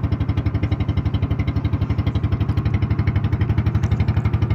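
The small single-cylinder Robin engine of an Indonesian fishing boat running at a steady speed, with an even, fast putter.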